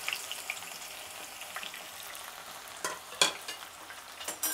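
Freshly added sliced onions frying in hot oil in a nonstick pan: a steady sizzling hiss. A few sharp clicks come about three seconds in and again near the end.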